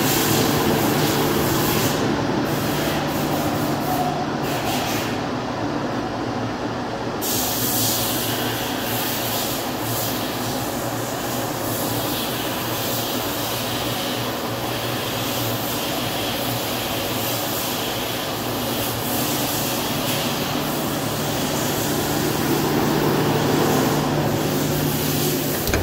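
Fessmann BK 2 rack baking oven running: a steady mechanical hum with a rush of air as its rack trolley turns on the rotating platform.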